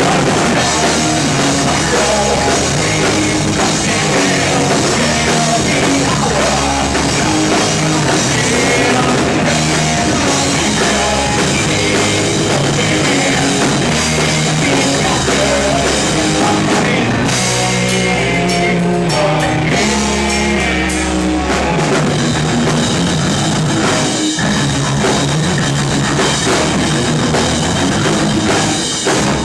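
A rock band playing live at full volume, with drum kit and guitars driving the song.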